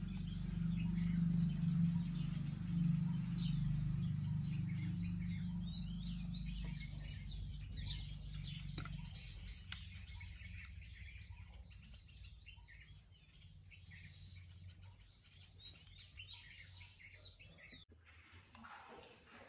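Many small birds chirping over a low steady hum. The hum is loudest at the start and fades away through the middle.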